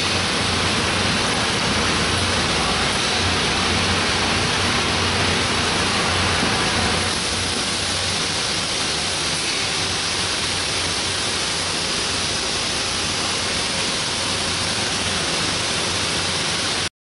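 Steady industrial shop background noise: a dense hiss with a low hum underneath. It eases slightly about seven seconds in and cuts off abruptly just before the end.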